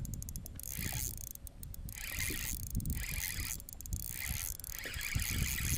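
Fishing reel being cranked in repeated bursts while a bass is fought on the line, over a constant low rumble.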